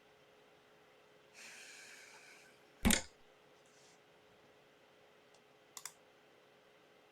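Clicks from playing an online Chinese chess game: one loud, sharp click about three seconds in and two faint quick clicks near the end, with a soft hiss a little before the loud click.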